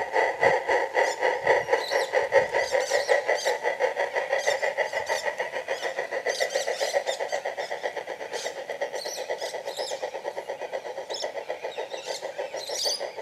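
Electronic steam-locomotive exhaust chuffs from a MyLocoSound soundcard, played through the speaker of a large-scale model British tank locomotive: a fast, even beat of chuffs that grows fainter as the locomotive runs away.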